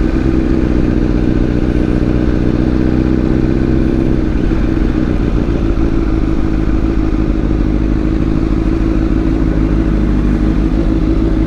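2007 Honda CBR1000RR Fireblade's inline-four engine running at a steady, unchanging engine speed, with no revving.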